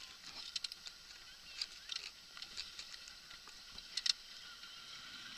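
Small waves lapping and slapping against the side of a small boat: a string of short, irregular splashes and ticks over a faint hiss, the sharpest pair about four seconds in.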